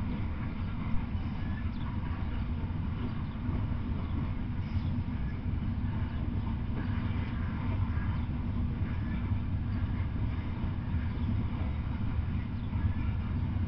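Freight train of open-top aluminium coal cars rolling past, a steady low rumble of wheels on rail joints and cars with faint higher clanks and squeals, and one sharper knock about a second in.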